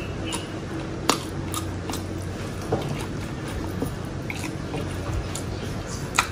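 Close-up eating sounds: wet chewing and sticky lip smacks, with fingers tearing grilled chicken apart on a wooden board. Scattered sharp clicks, the loudest about a second in and near the end, over a steady low hum.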